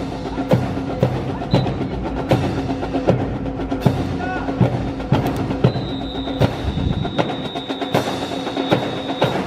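Drill rifles clacking sharply, many struck and slapped together in a rhythmic pattern that sounds like a percussion beat. A thin steady high tone joins in about halfway through.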